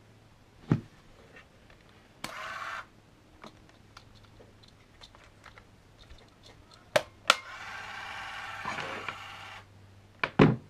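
Minolta Freedom Action Zoom 35mm compact camera's motor whirring twice, a short burst about two seconds in and a longer run of about two seconds near the end. Sharp clicks and knocks of the camera being handled fall between them.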